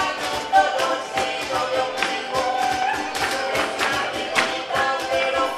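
Live Latin American folk music from a small ensemble of harp, guitars and cajón, with a steady strummed and struck rhythm.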